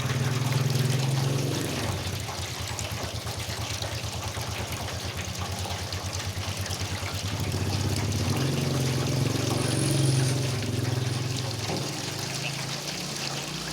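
Single-phase electric water pump running with a steady low hum that flutters for a while, while water pours and splashes from its outlet.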